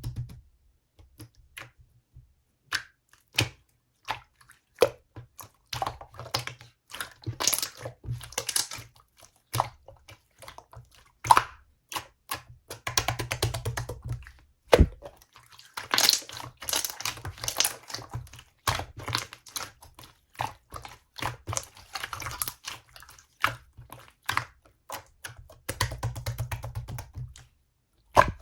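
Clear slime being squished and poked by hand: irregular sticky clicks and pops, with short stretches of crackly squishing.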